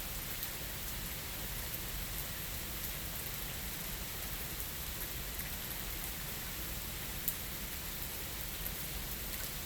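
Steady rain falling, with a few individual drops ticking sharply, the clearest about seven seconds in.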